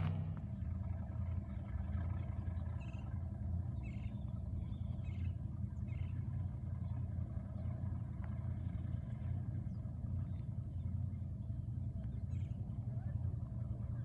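Motorboat engine droning steadily across the lake, with a few short bird chirps over it.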